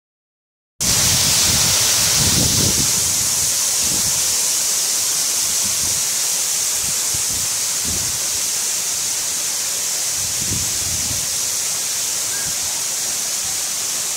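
A waterfall pouring over a rock ledge into a plunge pool: a steady, loud rush of falling water that starts abruptly about a second in, with a few low rumbles underneath.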